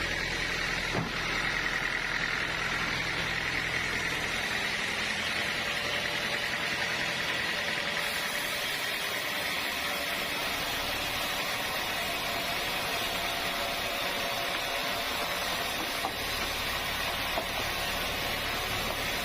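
Sawmill machinery running steadily: a continuous mechanical noise with a high whine throughout. A low engine-like hum under it drops away about eight seconds in.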